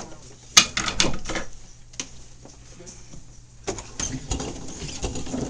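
Several sharp knocks and clatters, then denser shuffling and clattering from about four seconds in, as a garbage-filled mini-fridge is handled.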